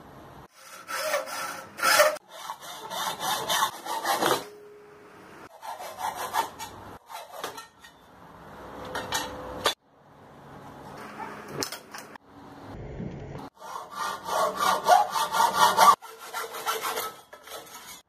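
Hand hacksaw sawing through a thin angle profile, in several short runs of quick back-and-forth strokes, each broken off suddenly.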